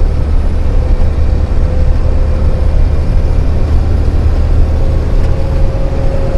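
Heavy truck cruising in seventh gear at about 50 km/h, heard inside the cab. The diesel engine and road noise make a loud, even drone, with a steady whine above it.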